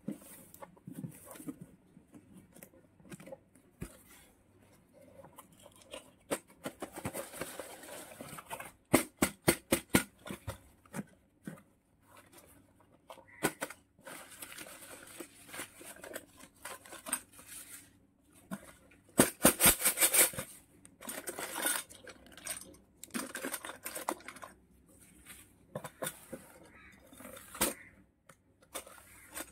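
Hands opening a cardboard parcel: scraping and tearing at the packing tape and flaps, crumpled newspaper packing rustling, and plastic toy utensils clicking against the box. The sound comes in irregular handling noises, with a run of quick clicks about nine seconds in and the loudest rustle of paper around twenty seconds in.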